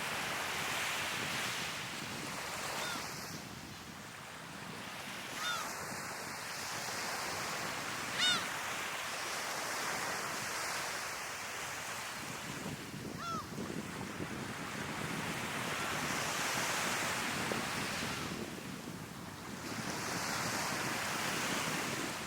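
Sea waves breaking and washing ashore, swelling and falling every few seconds. Gulls give a few short calls over the surf, the loudest about eight seconds in.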